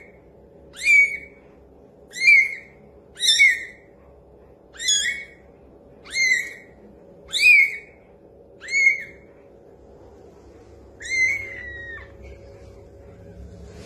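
Very young kitten mewing: a string of thin, high-pitched mews about once a second, with a longer, falling mew near the end.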